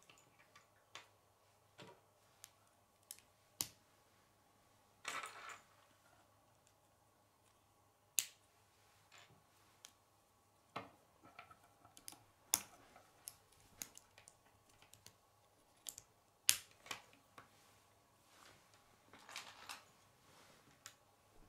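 Plastic K'nex rods and connectors clicking as they are snapped together and handled: scattered sharp clicks at irregular intervals, with short rattles of pieces shifting about five seconds in and again near the end.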